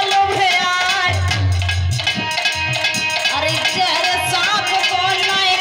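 Live Indian folk music: a singing voice over a held melody instrument, with beats on a hand drum.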